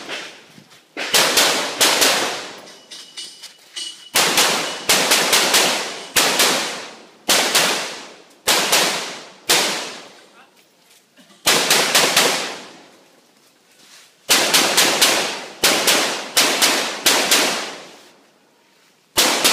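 Handgun shots in rapid strings of two to five, with pauses of a second or two between strings as the shooter moves between firing positions; each shot rings out briefly. This is a competitor's rapid fire on a timed practical-shooting stage.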